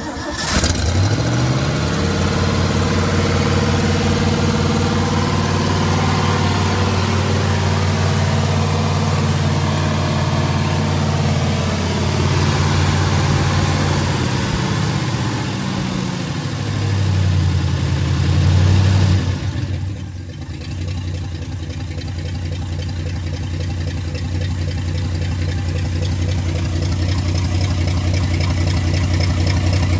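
Freshly rebuilt Ford 360 FE V8 catching and running at a fast idle, set too high. Its revs swell briefly, then about two-thirds of the way through drop to a lower, steady idle as the idle speed is brought down.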